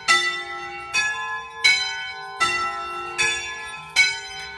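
Church bells of a three-bell Veronese-system ring, swung by hand from ropes, striking one after another, six strokes about three-quarters of a second apart, each stroke ringing on into the next.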